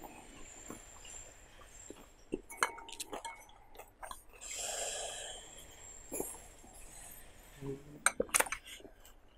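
Metal spoon clinking against a ceramic bowl of mohinga broth several times, the loudest clinks near the end, with a soft sip of the soup and breathing between.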